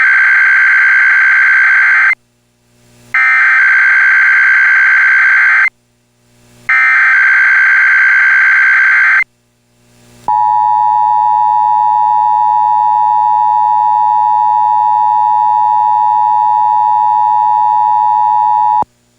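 Emergency Alert System SAME header: three bursts of warbling digital data tones about a second apart, then the steady two-tone EAS attention signal held for about eight seconds. Together they announce a Required Weekly Test.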